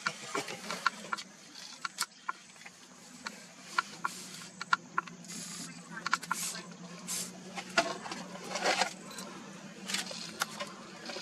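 Camera shutters clicking irregularly, single shots and quick runs of shots, over a low steady hum.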